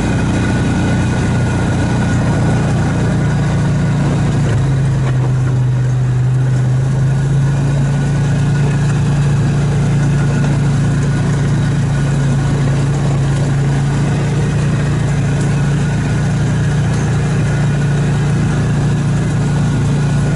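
Vehicle engine running steadily while driving slowly, its note shifting slightly about four and a half seconds in.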